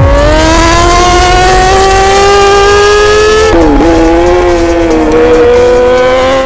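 Sport bike's engine at high revs through an Akrapovic exhaust, its pitch climbing steadily, dipping sharply about three and a half seconds in, then climbing again.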